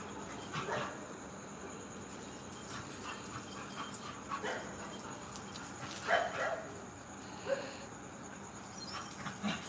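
A dog giving a few short whimpers and yips, spaced out over several seconds.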